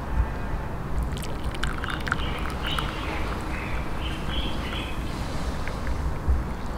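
Tea pouring from a metal teapot into a ceramic cup, a splashing trickle with small clicks that starts about a second in, over a steady low rumble.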